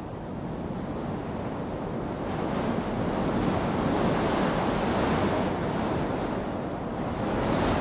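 Rushing wind noise, an even hiss with no tones, swelling about two seconds in and then holding steady.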